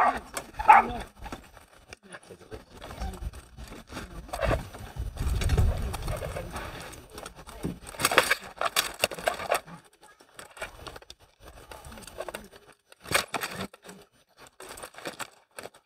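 Sharp knocks of rattan weapons hitting shields and armour in SCA armoured combat, the strongest about 8 and 13 seconds in, over low voices of onlookers.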